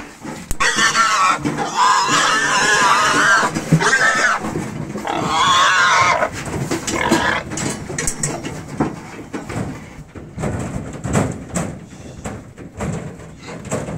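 Pigs squealing loudly while being caught and driven into a pen, two long wavering screams in the first half. After that it is quieter, with scattered knocks.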